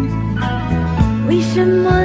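A woman singing a Mandarin pop ballad over a band accompaniment, holding a note with vibrato about a second in.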